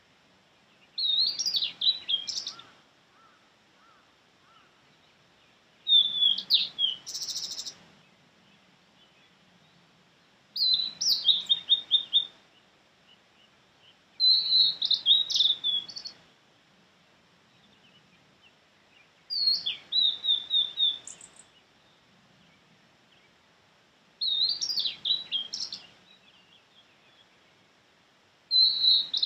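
Male blue-and-white flycatcher singing: short phrases of high, clear whistles, each ending in a quick run of short notes, repeated about every four to five seconds.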